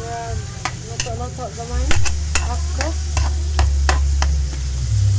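Spatula scraping and knocking against a wok as chicken pieces are stirred while frying, about a dozen sharp clicks over a faint sizzle. A low rumble runs under the middle of it.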